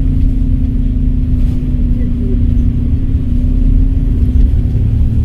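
Volvo B7RLE bus's six-cylinder diesel engine running under way, a heavy steady low rumble with a droning tone over it that fades somewhat after about four seconds.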